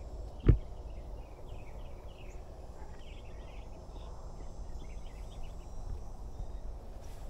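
Small birds chirping in many quick short calls over a low steady rumble, with one sharp thump about half a second in.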